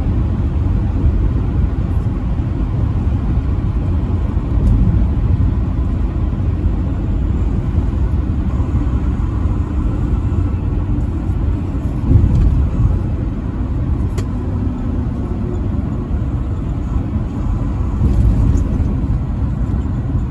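A truck driving at highway speed: a steady low rumble of engine and road noise.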